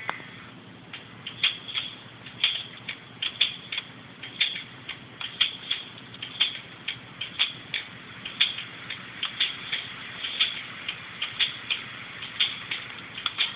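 Steady ticking: a louder click about once a second with a softer click between each.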